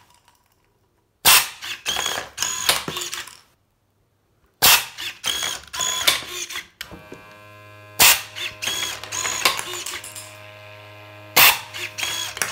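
Steel wool firework launcher firing four times, each a sudden sharp air blast followed by about two seconds of rapid clicking and ratcheting from its mechanism with a brief whine. From about seven seconds in, a steady low hum runs underneath: the pre-burner pump running.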